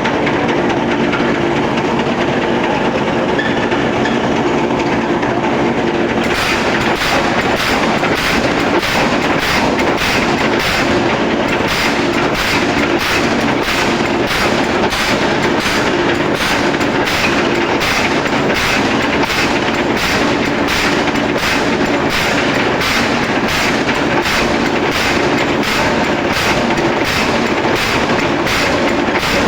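Forging-line machinery running with a steady hum. About six seconds in, a regular series of sharp knocks starts, roughly one and a half a second, like a press or hammer cycling.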